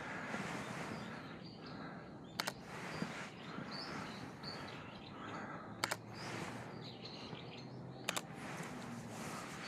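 Outdoor ambience of steady background noise with birds chirping, broken by short sharp double clicks about two and a half, six and eight seconds in.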